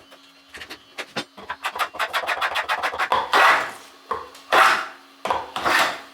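Stanley No. 45 combination plane cutting a groove in a wooden board: a quick run of short strokes, then four longer, louder strokes.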